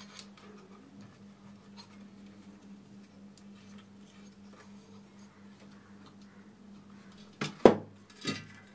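Steady low mains hum from an LA4440 amplifier board, which the repairer puts down to a loose, dry-soldered capacitor. Faint clicks of handling run under it, and two sharp knocks come near the end.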